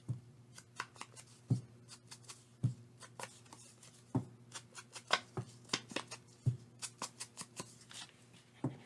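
Light, irregular taps and rustles of small paper pieces being handled and dabbed with an ink pad along their edges, sometimes several in a second, some landing with a dull knock on the table. A faint steady electrical hum runs underneath.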